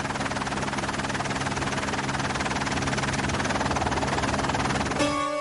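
Loud machine noise with a fast, even chopping flutter, slowly growing louder, cut off sharply about five seconds in by a held musical chord.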